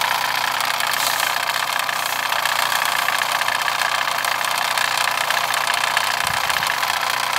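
Mamod SP4 model steam engine running steadily at speed while driving a toy cement mixer through drive bands, its mechanism giving a fast, even patter.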